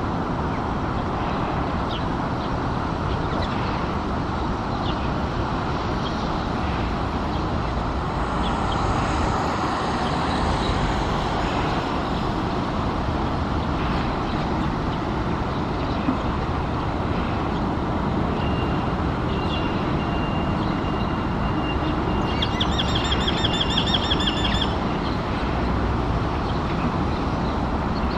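Steady rumble and hiss of road traffic throughout. About two-thirds in, a steady high thin tone comes in, and a rapid high trill sounds over it for about two seconds.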